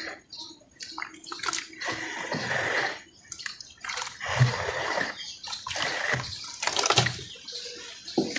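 Hands sloshing and squeezing a thin slurry of red dirt and water in a basin, with wet splashes and squelches coming in irregular bursts.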